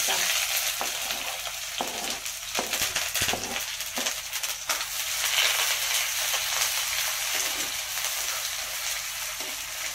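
Chopped onions and curry leaves sizzling in hot oil in a kadai as they begin to fry, with a steel ladle stirring and scraping the pan. The sizzle starts suddenly and stays steady, and a handful of short ladle clicks fall in the first few seconds.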